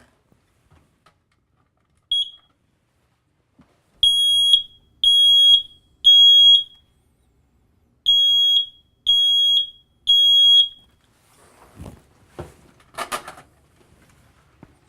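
A 10-year sealed-battery smoke alarm being tested. It gives one short chirp, then sounds its alarm: two groups of three loud, high, steady beeps, showing that the alarm works.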